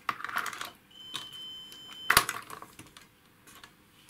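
Clattering as test probes and a metal instrument chassis are handled on a workbench. A continuity tester's steady high beep lasts about a second and is cut off by a sharp knock, the loudest sound, followed by a few light clicks.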